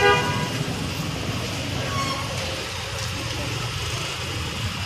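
City street traffic: a steady rumble of engines and tyres, with the tail of a car horn cutting off right at the start.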